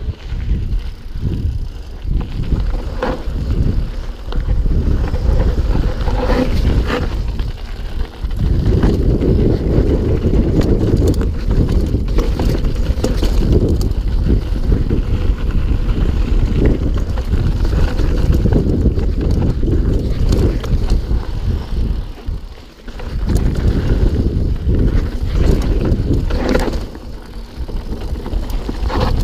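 Mountain bike riding fast down a rocky trail: wind buffeting the microphone, with tyres crunching over stones and the bike rattling and clattering over the bumps, in many sharp knocks. The noise drops off briefly near the end.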